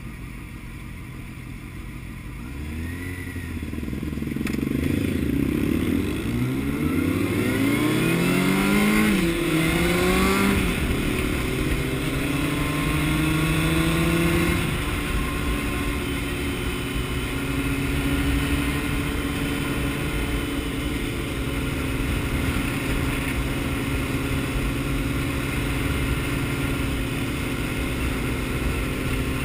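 Inline-four engine of a Honda CBR600F naked motorcycle idling, then pulling away hard: the revs climb and drop back through several quick gear changes over the first ten seconds or so. After that the bike settles into a steady cruise.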